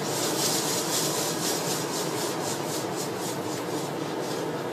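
Rubbing strokes from scrubbing during a car wash, about four a second, starting at once and fading out over a few seconds, over a steady rushing noise.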